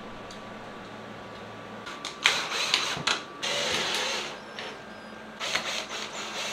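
Power drill driving screws into a 3D-printed plastic bracket, the motor running in about three short bursts a little apart, starting about two seconds in.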